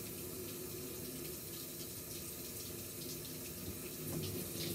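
Water running steadily from a hand-held shower head, rinsing shampoo out of a Pomeranian's coat.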